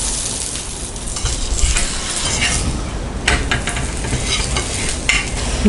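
Oil sizzling under a green gram chapati frying on a hot tawa, while a flat spatula presses and spreads it, scraping the pan a few times.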